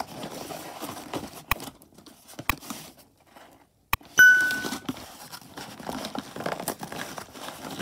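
Cardboard box being torn open by hand along its taped seam: ripping and rustling of cardboard and packing tape, with a few sharp clicks. About halfway through, after a short lull, a click and a short chiming ding from a subscribe-button animation stand out as the loudest sound.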